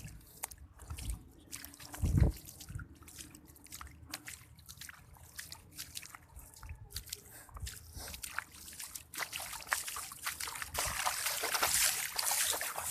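Water trickling and splashing, with scattered small knocks and a thump about two seconds in. The water sound grows louder over the last few seconds.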